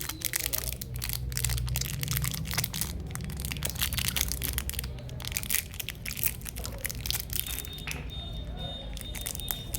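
Rapid crackling and crinkling of packaging being handled as a chocolate box is unwrapped and opened, thinning out after about seven seconds. A faint steady high tone comes in near the end.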